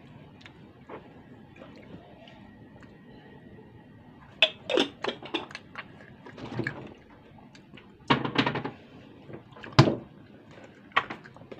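Eating sounds up close: wet lip smacks and chewing as chicken curry is eaten by hand. They come in short clusters of sharp smacks after a few quiet seconds.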